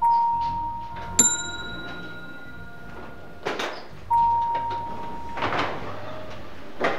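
Elevator sound effects: a steady electronic beep twice and a bell-like elevator ding about a second in, with short whooshes of the sliding doors between them.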